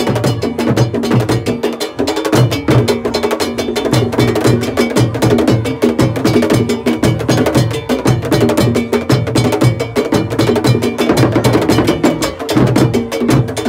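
Live Ghanaian drum ensemble: tall pegged barrel drums struck with sticks and smaller hand drums played by hand, beating a fast, dense rhythm.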